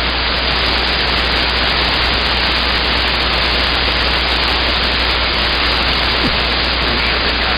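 CB radio receiver hissing with steady, loud band static between transmissions, the channel open with no station keyed up.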